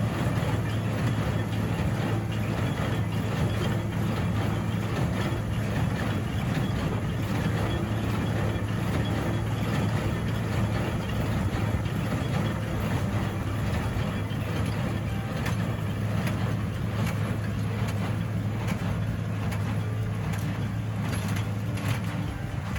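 Cockshutt 1650 tractor engine running steadily, a constant low drone with no change in speed.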